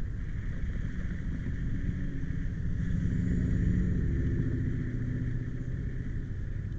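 A low rumble with an engine hum that swells and fades, loudest a few seconds in, as a vehicle passes, under wind on the microphone.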